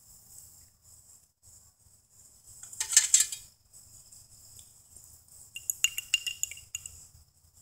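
Small metal parts and tools clinking and rattling as they are handled, in two short clusters, about three seconds in and again around six seconds.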